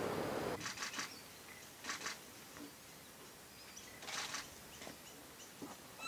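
A wild bird giving three short, harsh calls, about a second in, at two seconds and just after four seconds. A steady rushing background stops suddenly half a second in.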